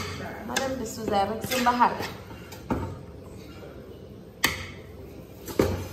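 A person's voice for the first two seconds, then three sharp, unevenly spaced knocks of kitchen utensils.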